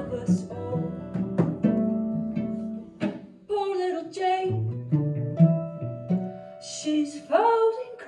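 Live acoustic string band: a woman singing over strummed and picked acoustic guitar, with a cello plucked for the bass line. The sung phrases come in twice, about halfway through and near the end, with sliding notes.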